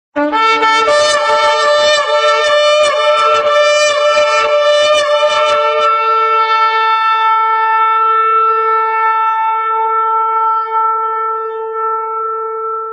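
A shofar blown in one long blast. A brief low note at the start jumps up to the main note, which is rough and fluttering for about the first half. It then settles into a steady held tone that fades away at the very end.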